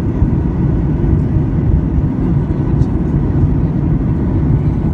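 Cabin noise of a Boeing 737 MAX heard from a window seat during its descent: a steady low roar of airflow and the CFM LEAP-1B engines, with faint steady tones above it.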